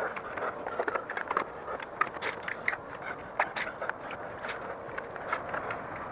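A wet sponge scrubbing a bicycle's rear wheel rim and spokes: irregular rubbing with scattered sharp clicks, no steady rhythm.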